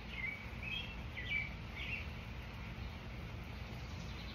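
A bird chirping, about five short calls in the first two seconds, over a steady low outdoor hum.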